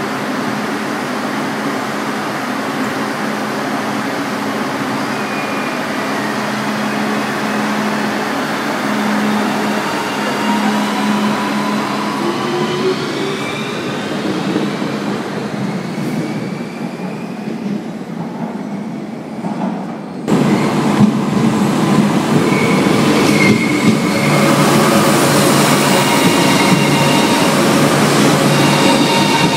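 Renfe Cercanías Civia electric commuter train moving through the platform, its traction motors whining and rising in pitch as it gathers speed. About twenty seconds in it turns suddenly louder: a heavier rumble with high, steady wheel squeals over it.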